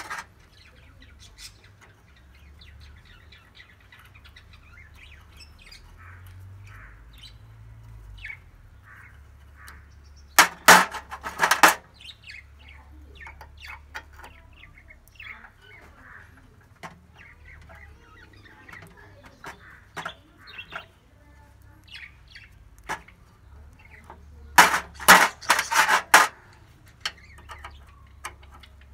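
Hand tool clinking against the metal oil cooler and filter housing of a Maruti Swift in two short bursts of rapid clinks, one about a third of the way in and one near the end. Faint bird chirps sound in between.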